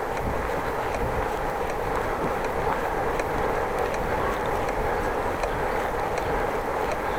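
Bicycle being ridden: steady rush of tyres and wind, with faint ticks from the bike about once a second. The ticking persists after a squeal was fixed, so the bike is not yet right.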